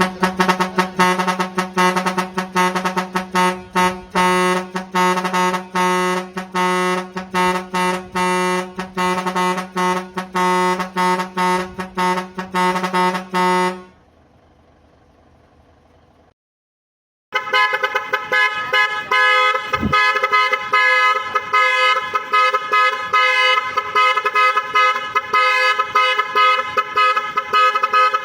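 A large vehicle horn sounding a rich, multi-tone chord in rapid, stuttering blasts. The blasts stop about halfway through. After a brief silence a second horn with a higher, brighter chord blasts in the same rapid pulses.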